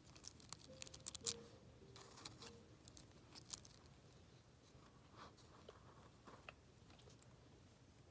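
Faint, scattered small clicks and crinkles of a plastic blind bag and fidget toy being handled, mostly in the first few seconds.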